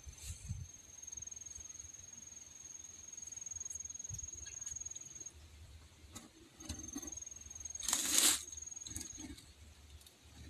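A high-pitched insect trilling steadily for about five seconds, stopping, then starting again for a few seconds more. About eight seconds in there is a short, louder rustle.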